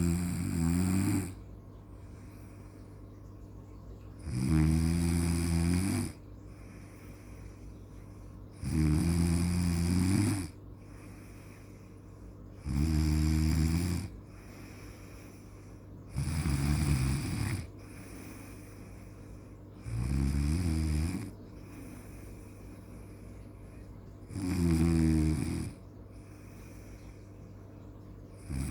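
Snoring: one snore about every four seconds, each a little over a second long, about seven in all.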